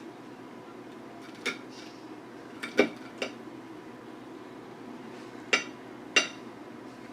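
Knife and fork clinking against a plate: about six sharp, short clinks spaced irregularly, the loudest about three seconds in and two more near the end.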